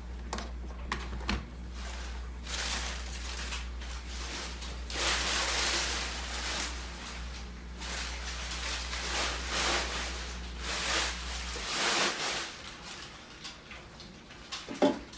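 Rustling and light knocks and clicks from handling the coffee maker and its parts, over a steady low hum that cuts off about twelve seconds in.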